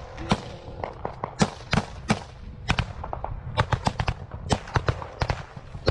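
Small-arms gunfire in a firefight: irregular single shots and short strings of rapid shots, some sharp and close, others fainter and further off.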